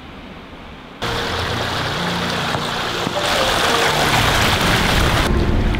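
A shallow rocky stream's water running, starting suddenly about a second in after a quieter stretch, with background music under it.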